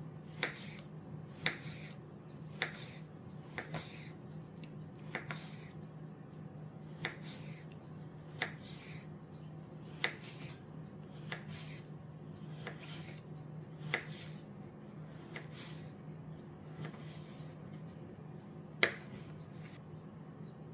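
Light kitchen taps and clicks at irregular intervals, about one every second or so, one sharper near the end, over a steady low hum.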